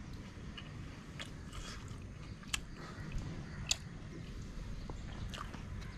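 A person chewing food close to the microphone, with a few sharp, crisp crunches, the clearest two about a second apart in the middle.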